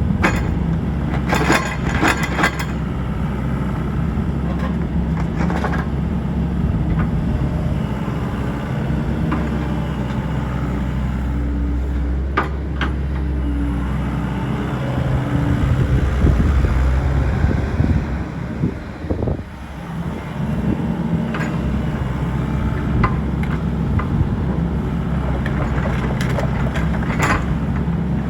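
Sany SY75C excavator's 54 hp Isuzu diesel engine running steadily, its note shifting about halfway through and dipping briefly about two-thirds in. A few sharp knocks are heard over it near the start, in the middle and near the end.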